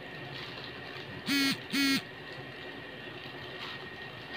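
A horn honks twice in quick succession, about a second and a half in: two short, equal blasts on one steady pitch, each with a brief upward swoop at its start.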